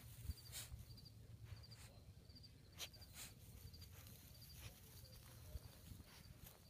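Faint, near-silent outdoor background with an insect chirping steadily: a short pulsed chirp about twice a second. A few soft clicks and rustles from the grass.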